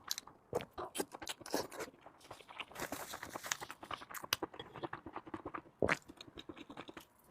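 A person chewing pig-head meat with garlic: a run of small, irregular crunches and wet clicks of the mouth, with one louder click about six seconds in.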